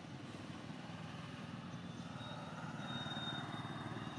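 Outdoor background noise dominated by a distant motor vehicle running, a low steady rumble that swells a little through the middle. A faint, thin, high steady whistle lasts about a second and a half near the middle.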